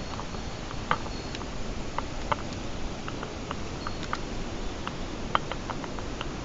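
Steady rush of a mountain stream, with light, irregular ticks and clicks over it.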